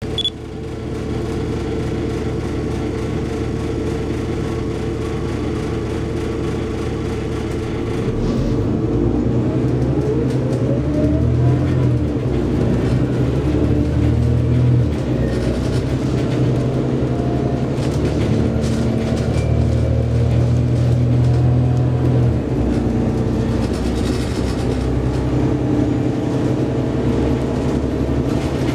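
Scania OmniCity city bus heard from inside the passenger cabin, its engine running steadily as the bus moves. About eight seconds in it gets louder and a whine rises in pitch as the bus accelerates, then it runs on at speed.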